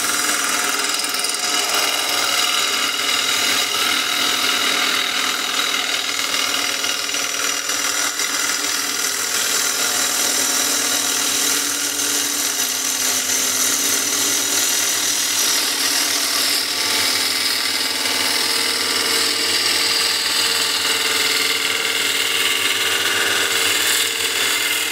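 Bowl gouge, ground on a 60-grit wheel, cutting the outside of a bowl spinning on a Killinger wood lathe. A steady hiss of shavings peeling off runs over the hum of the lathe's motor.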